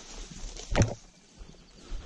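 Footsteps and brushing through tall grass and bush, with one heavy thump a little under a second in and a lighter one near the end.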